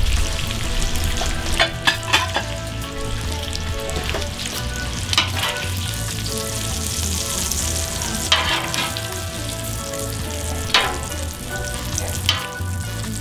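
Bacon sizzling steadily on a hot flat-top griddle while metal tongs lift the strips off, with several sharp clicks and scrapes of the tongs spread through.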